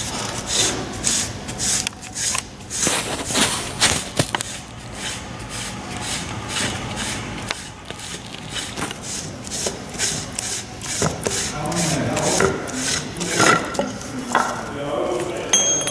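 A steel centralizer wing being slid into its slot on a drill pipe camera running tool: repeated metal-on-metal scraping and rubbing, broken by many short clicks and knocks.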